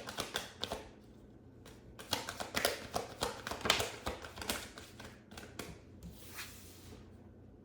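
A deck of tarot cards being shuffled by hand: rapid papery flicking and tapping in a short burst at the start, then a longer run from about two to five seconds in, which dies away near the end.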